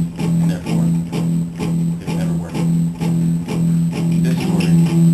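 Guitar strumming chords in a steady, even rhythm, with no singing.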